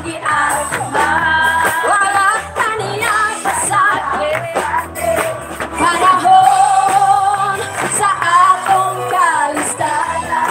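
Live band playing a song: electric guitars, drum kit and keyboard under a sung lead vocal, with held, sliding sung notes over a steady bass line and drumbeat.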